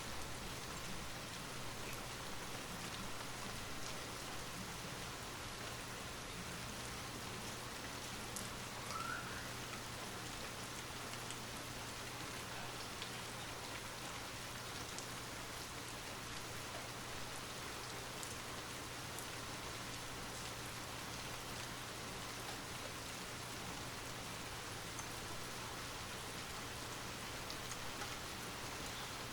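Light rain falling steadily, a soft even patter of drops. A short, faint rising chirp comes about nine seconds in.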